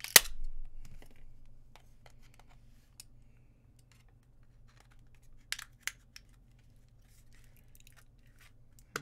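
Plastic casing of an HP MU06 laptop battery pack cracking under a hand tool as it is pried apart: one sharp loud crack just after the start, then scraping that fades over about a second, and a few small clicks and snaps later, around five and six seconds in.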